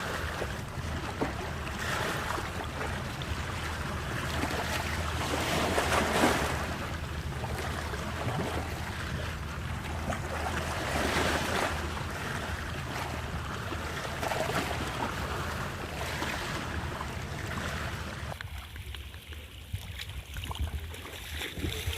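Sea surf washing onto a beach, swelling and ebbing every few seconds, with wind rumbling on the microphone. The sound turns duller near the end.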